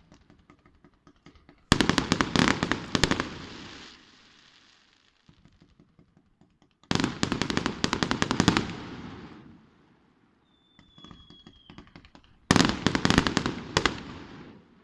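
Fireworks display: three volleys of rapid-fire bangs, each about a second and a half of dense crackling reports that die away, with faint scattered crackles between them. A short, slightly falling whistle sounds between the second and third volleys.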